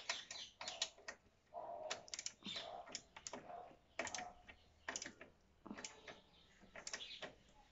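Socket ratchet wrench clicking as it tightens a radiator guard mounting bolt, in short runs of rapid clicks with pauses between strokes.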